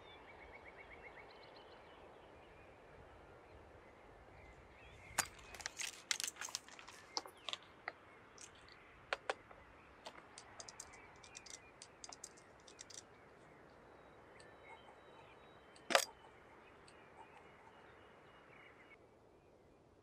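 Scoped rifle being handled: a run of sharp clicks and rattles, then one louder single click about three seconds later, over a faint steady hiss.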